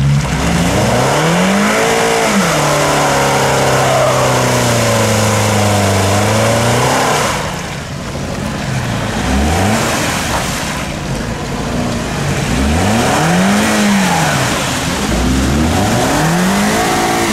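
Car engine revving hard in repeated surges over a steady hiss of noise. It climbs and holds high for several seconds near the start, drops off about eight seconds in, then rises and falls again twice.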